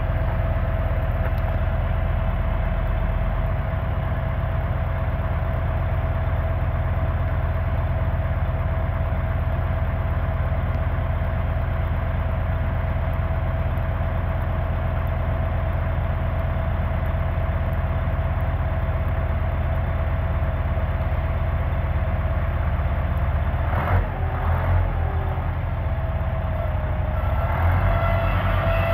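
Heavy diesel engines idling steadily, with a constant whine over a low rumble. Near the end it grows louder as the Case 855C crawler loader's diesel revs to drive off the tilted trailer.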